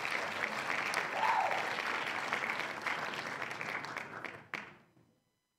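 Audience applause, a dense steady clapping that fades out about five seconds in, played as a curtain-up cue.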